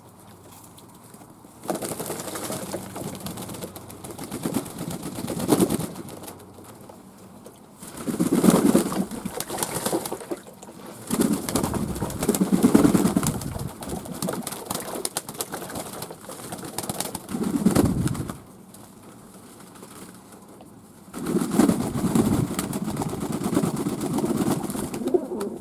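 Fantail doves cooing, with repeated bursts of rustling noise lasting a few seconds each.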